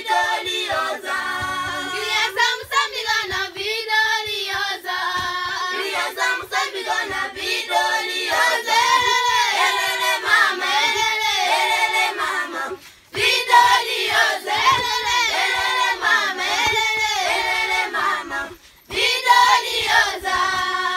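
A group of girls singing together without instruments, one song running on with two short breaks, about 13 seconds in and near 19 seconds.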